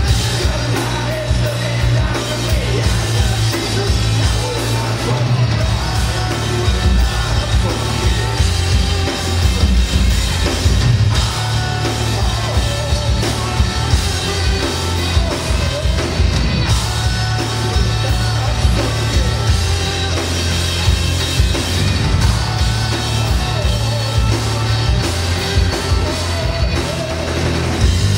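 Live rock band of amplified cellos and a drum kit playing loudly, with a singer's voice singing and yelling over it.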